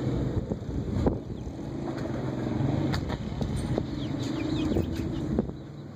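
Faint, high, downward-gliding peeps of a chick, a few of them about the middle, over a steady low hum and a couple of sharp knocks.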